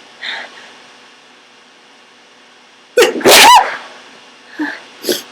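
A woman sneezes once, a sudden loud burst with a voiced falling tone about three seconds in. It is the sneeze of someone with a cold and a tickling nose.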